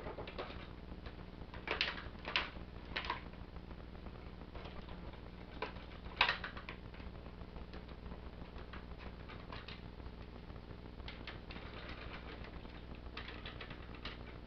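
Hard plastic clicks and clacks of a large Transformers Titans Return Trypticon figure being handled and transformed, its parts and joints snapping into place. A few sharper snaps come about two to three seconds in and again about six seconds in, with lighter ticks scattered between.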